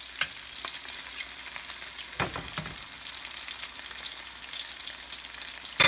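Halibut fillets sizzling steadily in hot oil and butter in a stainless steel pan, with light spoon clicks against the pan as the fish is basted. A sharp metallic clank rings briefly right at the end.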